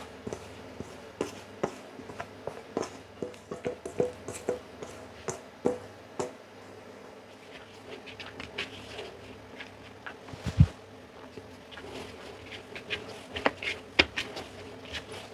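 Pizza dough being tipped from a bowl and kneaded by hand on a floured silicone mat: scattered soft taps and pats of hands on dough, with one louder thump about ten and a half seconds in.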